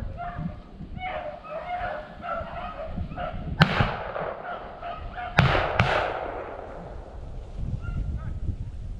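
A pack of beagles bawling on a rabbit's trail, then three gunshots: one midway through, then two in quick succession a couple of seconds later. The hounds' voices are fainter and sparse after the shots.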